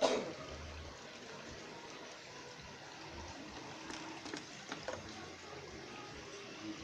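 Steady trickling, running water at a fishing pond. Right at the start there is a sharp, brief splash-like burst, and a few light clicks come about four to five seconds in.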